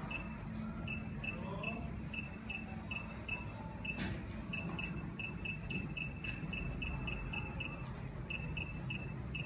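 Shockwave therapy machine beeping once for each step as its energy setting is pressed up: short high beeps about three a second, with a few brief pauses, over a low steady hum.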